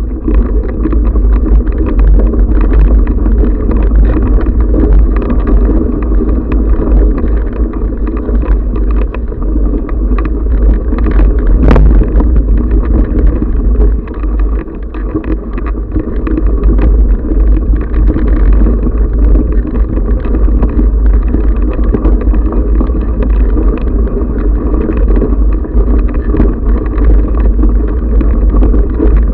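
Continuous rumble and rattle from a camera mounted on a bike riding a rough gravel trail, with wind buffeting the microphone. There is a sharp knock about twelve seconds in, and the noise eases briefly just after it.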